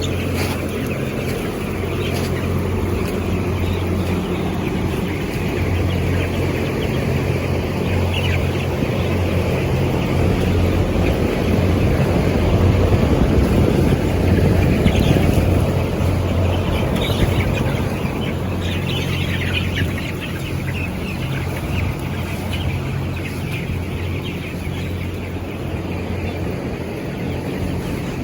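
Steady drone of the ventilation fans in a closed-house broiler shed, with a low hum, under the constant chirping of a large flock of broiler chickens; the drone grows a little louder around the middle.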